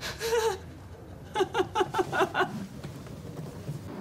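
A woman crying: a wavering wail, then a quick run of about seven sobs.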